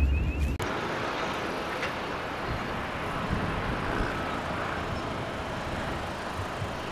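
A brief low wind rumble on the microphone, then steady, even outdoor background noise like distant road traffic, with no distinct events.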